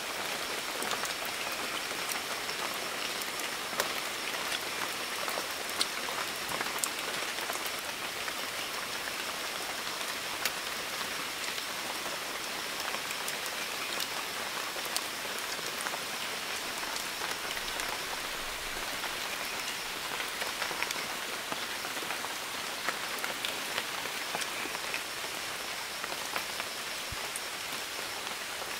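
Steady rain falling on forest leaves, with scattered individual drops ticking close by. A faint steady high whine runs underneath and drops out briefly a few times.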